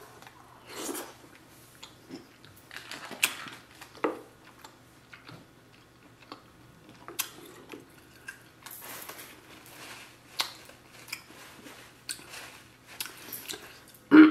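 A person eating seafood boil close to the microphone: chewing and biting, with irregular short crunches, clicks and wet smacks.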